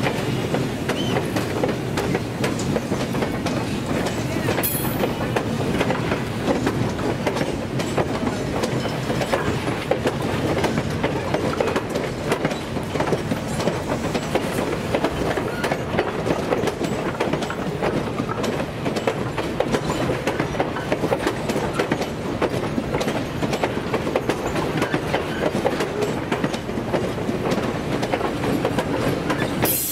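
Passenger train cars rolling past at close range: the steel wheels clatter in a rapid, irregular run of clicks over the rail joints, over a steady rumble of the train.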